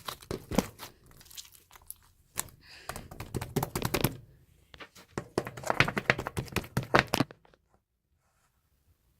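Slime being squished and pressed by hand, giving a dense run of sticky clicks, crackles and pops that stops suddenly about seven seconds in.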